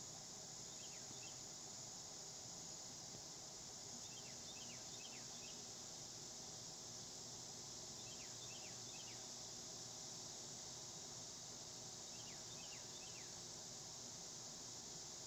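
Steady high-pitched insect chorus. A short run of three or four quick falling chirps comes back about every four seconds.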